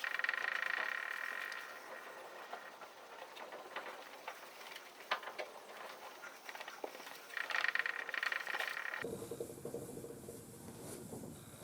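A frog trilling twice, each call a pulsing trill of about a second and a half, one at the start and one about seven and a half seconds in, with faint scattered clicks between.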